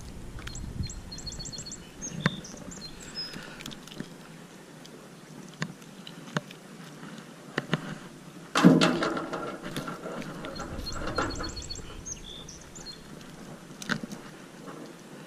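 Handling noise as a largemouth bass is unhooked: scattered clicks and rustling, with a louder thump and rustle about two-thirds of the way through. A songbird sings the same short high trilled phrase twice, near the start and again just after the thump.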